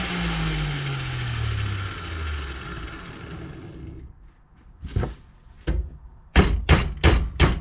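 A power tool's motor spinning down, its hum falling steadily in pitch and fading over about four seconds, followed by a series of about six sharp hammer blows on metal near the end.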